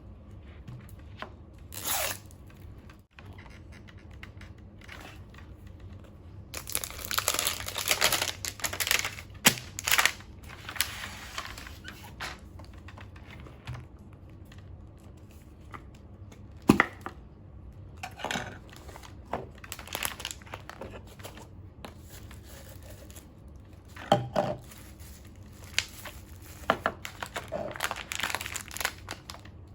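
Crinkly plastic toy packaging being handled and torn open in irregular bursts, with a few sharp clicks of small plastic parts.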